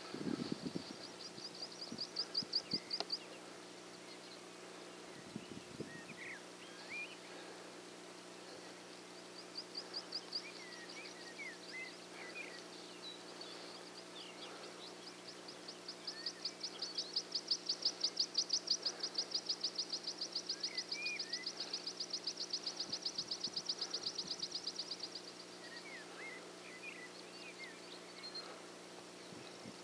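Birdsong: a high, fast pulsed trill in several bouts, the longest swelling and holding for about nine seconds, with scattered short chirps between.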